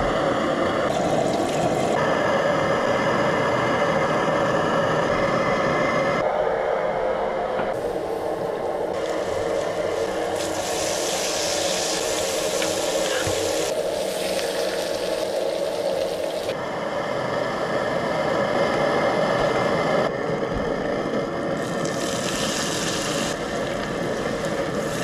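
Diced bacon and onion slices sizzling on a griddle, strongest in the middle stretch, over a steady hum with held tones that shifts at several cuts.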